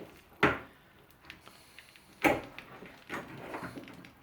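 Hand-held can opener being worked on a tin of tuna: two sharp clunks about two seconds apart, then quieter clicking and scraping, as the opener fails to bite into the rim.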